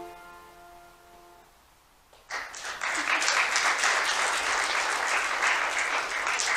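The last held chord of an instrumental piece rings out and fades, and about two seconds in a congregation breaks into loud, steady applause.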